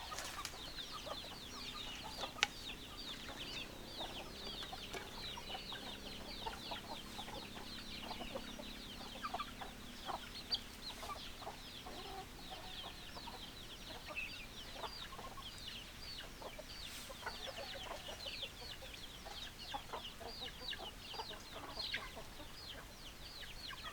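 Flock of chickens clucking, with short low calls scattered among a dense, continuous stream of high, short chirps.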